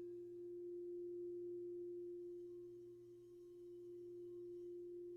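Singing bowl sounding one sustained, steady tone that swells and eases gently.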